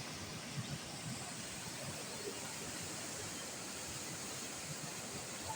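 Steady rushing of a flooded river in full spate, an even roar of fast-moving water.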